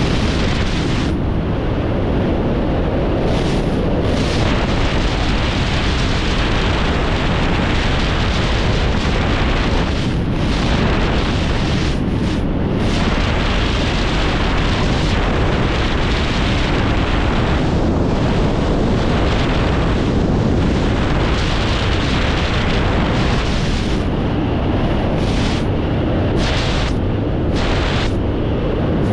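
Loud, steady rush of freefall wind over a skydiver's camera microphone, with the hiss thinning for moments a few times, near the end most of all.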